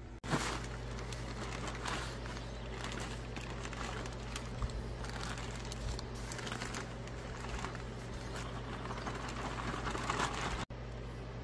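Plastic bag of potting mix crinkling and rustling as it is tipped and shaken, with the loose mix pouring out onto the bed in a stream of small crackles. The sound drops out abruptly just after the start and again near the end.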